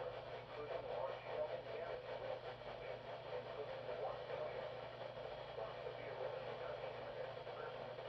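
Weather radio receiver static: a steady hiss over a low hum, with no clear voice coming through.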